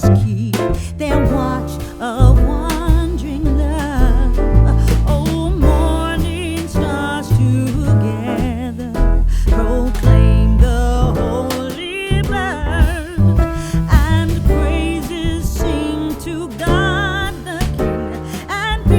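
Background music: a song with a singing voice over bass and drums, soul or R&B in style.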